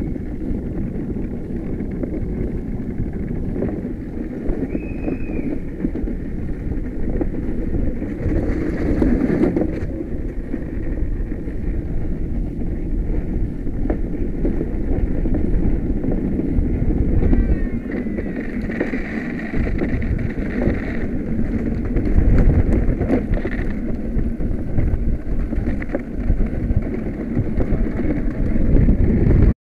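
Onboard a gravity-powered soapbox cart rolling downhill with no engine: wind buffeting the microphone over a steady rumble of the wheels on the asphalt.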